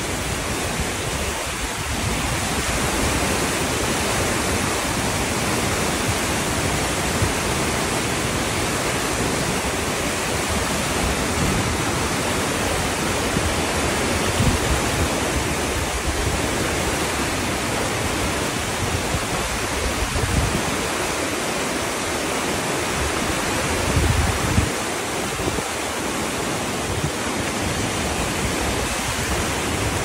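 Fast creek water rushing and splashing over rocks in white-water rapids, a steady loud hiss. There is a brief low rumble about three-quarters of the way through.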